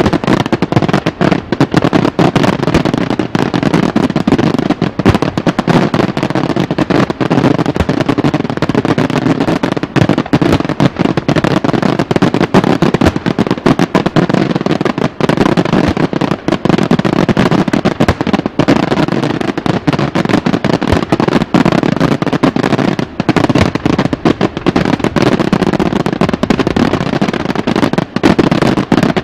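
Daytime aerial fireworks bursting in a dense, unbroken barrage of sharp bangs and cracks, many every second.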